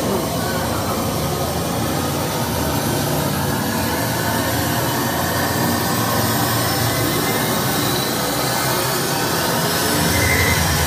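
Loud, steady rushing sound track played over the auditorium's speakers, with a whine that rises in pitch and grows louder near the end.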